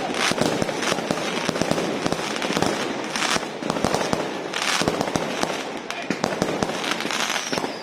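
Fireworks going off in a dense, continuous crackle of rapid bangs and pops, with several loud hissing bursts a few seconds apart.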